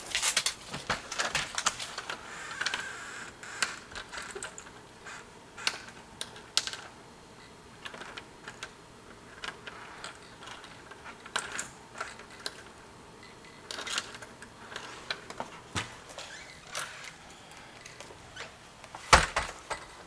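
Scattered light clicks and rattles of keys being fetched and handled, with one louder knock about a second before the end.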